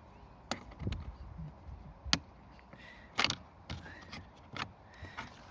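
Car interior plastic trim being handled during a panel removal: a scattered series of sharp clicks and knocks, about six, the loudest a little after two seconds in.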